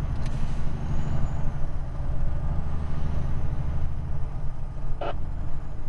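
Semi-trailer truck's diesel engine running steadily under road noise, with a short sharp sound about five seconds in.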